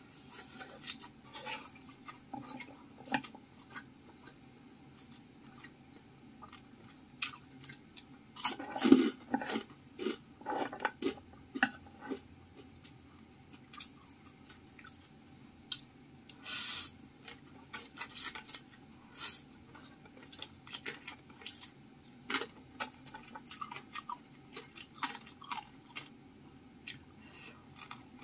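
Close-up chewing of spicy fried instant noodles and imitation squid, with irregular wet mouth clicks and smacks. The loudest cluster comes about nine seconds in.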